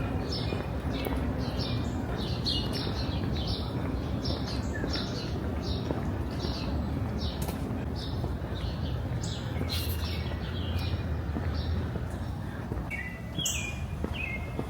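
Small birds chirping, a quick series of short high chirps, two or three a second, over a steady low background rumble.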